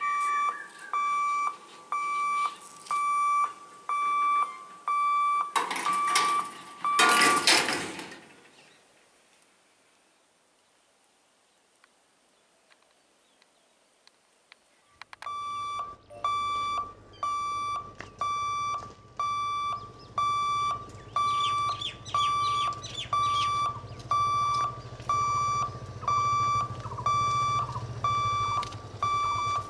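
Railway level-crossing warning hooter beeping in an even rhythm, one high beep a little more than once a second, sounding while the electric boom barriers are lowered. Two loud rushing noises break in about six to eight seconds in, then it goes nearly quiet for several seconds before the beeping starts again over a low steady hum.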